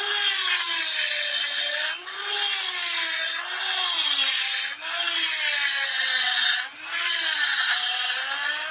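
Small electric rotary tool with a burr grinding the ports of an aluminium chainsaw cylinder. Its motor whine sags and recovers as the bit bears into the metal, over a gritty hiss, and it lets off briefly about two, five and seven seconds in.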